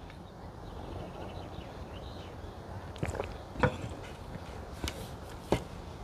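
Quiet outdoor background with a few short clicks and knocks after about three seconds: a drinking glass and cutlery being handled at a table during a meal.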